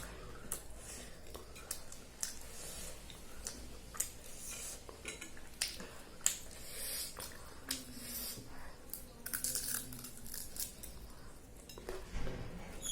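Cutlery and dishes clinking in many short, scattered clicks, with close-up chewing as a meal is eaten.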